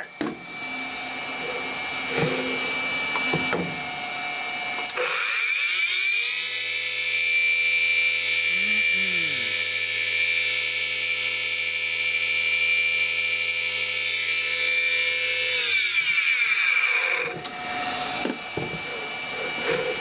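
Dishwasher pump motor run from a variable frequency drive, its worn bearings making a crunchy grinding noise. About five seconds in, the motor's whine rises in pitch as it speeds up. It holds steady for about ten seconds, then falls away near the end as it slows.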